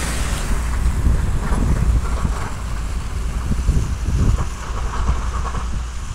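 MAZ-105 articulated city bus pulling away from the stop, its diesel engine giving a low rumble that surges unevenly as it drives off.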